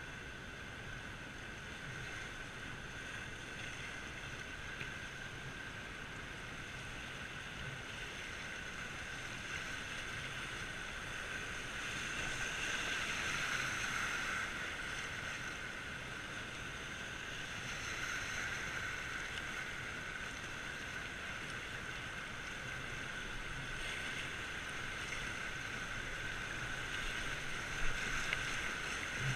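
Rushing river whitewater around a kayak running a rapid. It is a steady roar that swells about halfway through and again near the end as the white water grows, with one sharp tap near the end.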